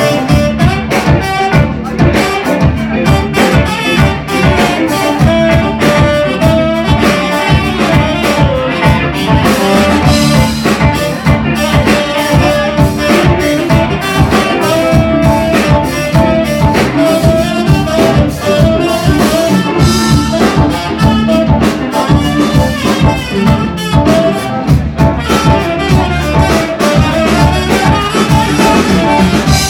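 Live band playing a jazzy groove: saxophone, electric guitar and keyboard over a steady drum-kit beat.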